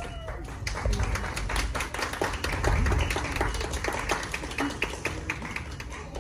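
Scattered hand clapping and light applause from a crowd of guests, with no music playing.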